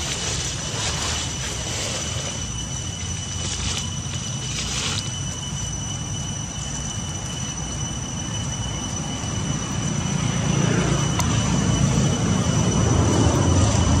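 Outdoor background noise: a low rumble that grows louder from about ten seconds in, with a steady high-pitched whine running under it.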